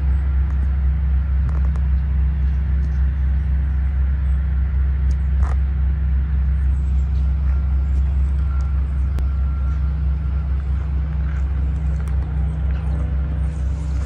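A steady, loud low drone that holds unchanged throughout, with a few faint ticks and a brief thin tone above it.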